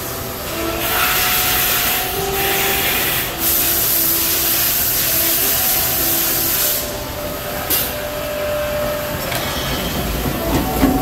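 Fanuc RoboDrill Alpha T10-C vertical machining center running its pallet change cycle. Servo motors whine in short steady tones under a loud hiss that lasts several seconds with two short breaks, then stops. After that comes a click, and near the end a low clunk as the pallet changer swings the pallets round.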